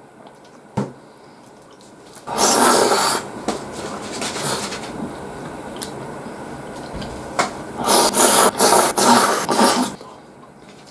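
Tsukemen noodles slurped up close: one loud slurp about two seconds in, then a quicker run of several loud slurps near the end, with softer chewing and mouth sounds between.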